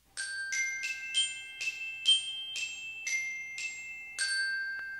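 Intro jingle of about ten struck, ringing bell-like notes in a short melody, glockenspiel-like in tone. The last note rings on and fades out.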